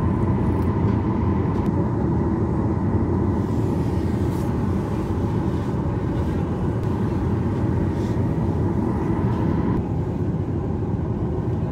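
Steady cabin noise inside a Jeju Air Boeing 737 on the ground: running jet engines and air-conditioning rumble and hiss, with a faint steady whine that drops away near the end.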